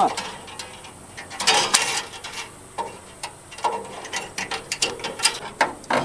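Steel baling wire being pulled and threaded through the metal wire guides of a New Holland 273 square baler: irregular scraping, clinking and ticking of wire on steel, with a longer rasping scrape about a second and a half in.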